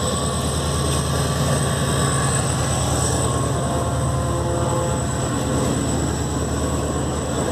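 HGMU diesel-electric locomotive passing close with its diesel engine running in a steady low rumble, followed by passenger coaches rolling over the track.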